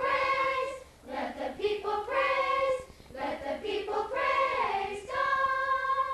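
Youth choir singing the closing praise song in several short sung phrases, the last one a long held note.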